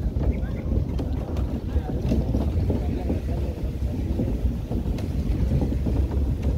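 Wind buffeting the microphone over the steady low rumble of a pickup truck driving along a rough dirt track, with a few light knocks.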